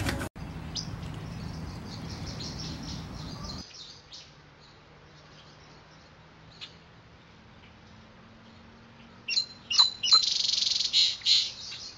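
Songbirds chirping outdoors: scattered high chirps, then a loud, rapid burst of calls about nine seconds in that lasts a couple of seconds.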